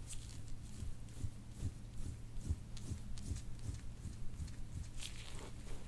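Soft low thumps repeating about two and a half times a second over a steady low hum, from rhythmic hands-on massage of the shoulder muscles on a treatment table.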